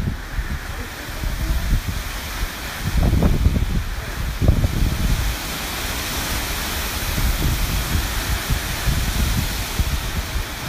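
Hurricane wind and rain: a steady rushing hiss, with strong gusts buffeting the microphone as low rumbles, heaviest about three to five seconds in.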